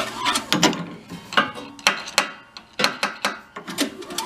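Toro snowblower four-stroke engine being turned over by hand, giving a run of irregular ratcheting clicks and a few sharp metallic knocks. The piston is jammed: the engine has blown up.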